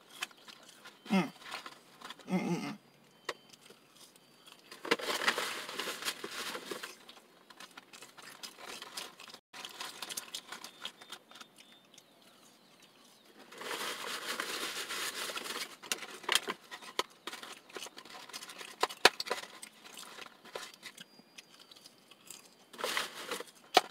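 Someone eating French fries from a paper fry carton: the paper rustling and crinkling in two spells of about two seconds each, with quiet chewing, scattered small clicks and two short hums near the start.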